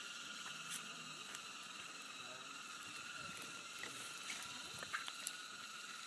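Cicadas droning in a steady, high-pitched chorus, with faint scattered clicks over it.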